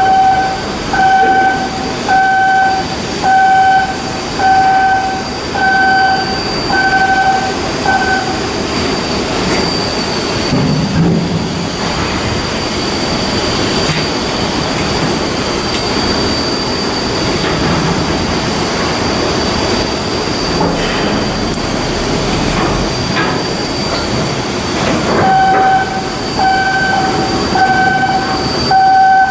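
A warning beeper sounding in a steady two-tone pulse, about one beep a second, over continuous heavy machinery rumble and a high whine. The beeping stops about eight seconds in and starts again near the end.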